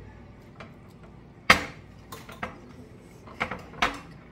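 Dishes clinking and knocking on a glass-topped table: a few sharp clinks, the loudest about a second and a half in, with two more near the end.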